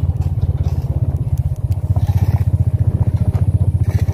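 Engine running with a low, fast, evenly pulsing rumble, with a few light clicks and clatters over it.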